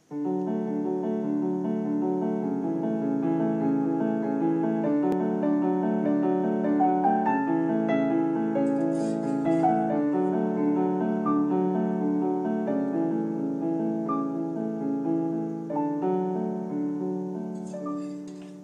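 Background piano music: gentle keyboard notes played in a steady, even pattern, fading near the end.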